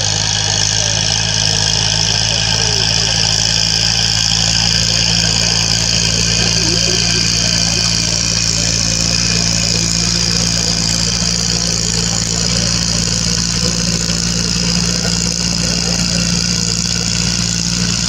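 Tractor diesel engine running steadily at a constant pitch, with a steady high hiss above it.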